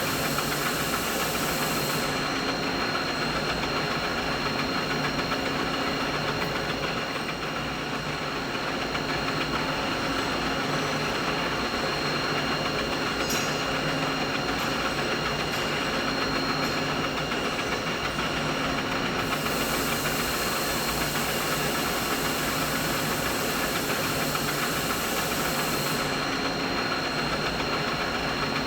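Steady machinery hum: an unbroken, even mix of noise and several constant tones, including a thin high whine, used as a mid-frequency masking sound.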